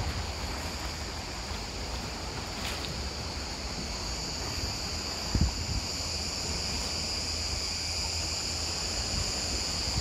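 Wind buffeting the microphone with a low rumble over the wash of the sea, and a steady high-pitched hiss above it. A brief louder gust thumps on the microphone about halfway through.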